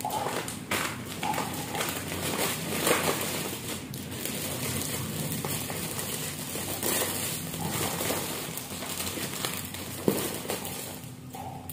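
Plastic packaging crinkling and rustling in irregular bursts as snack packets go into a printed plastic goodie bag and its top is twisted shut, with one sharp click about ten seconds in.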